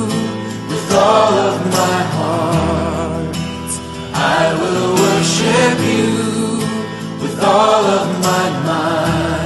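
Background music: a song with singing over sustained instrumental chords, the bass note changing every few seconds.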